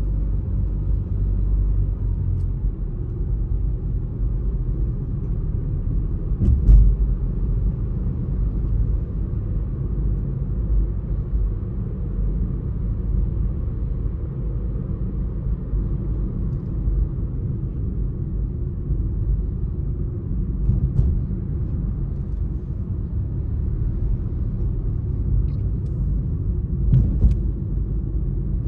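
Car driving along a road: a steady low rumble of tyres and engine, with a brief thump about seven seconds in and another near the end.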